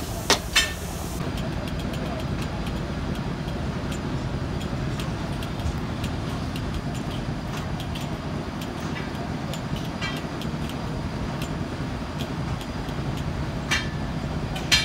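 Steady low background rumble with a few light metallic clicks and taps as a steel cylinder liner is worked in the bore of a truck engine block, the clicks coming closer together near the end.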